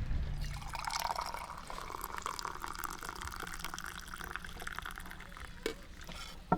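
Liquid pouring into a container, a steady pour that runs through most of the stretch, with a couple of short clicks near the end.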